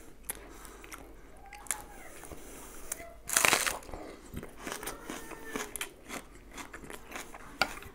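Close-up eating sounds: a loud, crisp bite into a raw onion a little over three seconds in, with quieter chewing and small wet mouth clicks around it.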